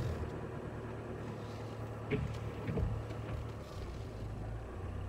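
Nissan Pathfinder R51 four-wheel drive's engine running at low speed on a sand track, a steady low drone heard from inside the cabin, with two short knocks about two and three seconds in.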